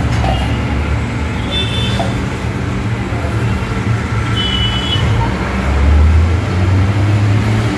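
Steady low rumbling hum in the background, swelling briefly about six seconds in, with two faint short high tones in the first part.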